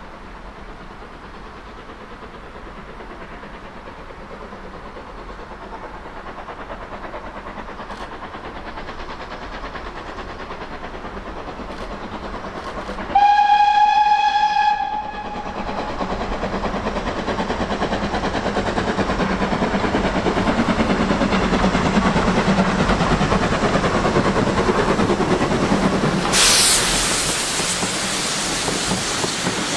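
Steam locomotive approaching, its exhaust chuffing grows steadily louder as the train nears. About halfway through it sounds one whistle blast of about two seconds, and near the end there is a brief loud hiss of steam.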